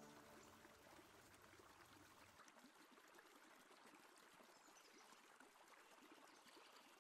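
Background music fades out at the start, leaving very faint trickling water, close to silence.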